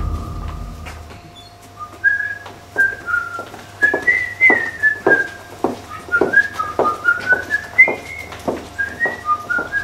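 A whistled tune of short notes hopping up and down, starting about two seconds in, with a steady beat of sharp taps under it.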